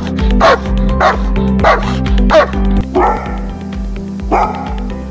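A Doberman barks in quick, sharp barks, about one every half second. About three seconds in, a Rhodesian Ridgeback takes over with two slower barks. Background music runs underneath throughout.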